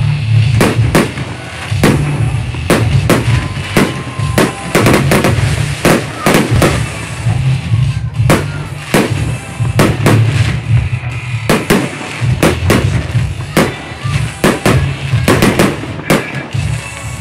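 Fireworks display: shells bursting in quick succession, sharp bangs about two a second over a heavy low rumble.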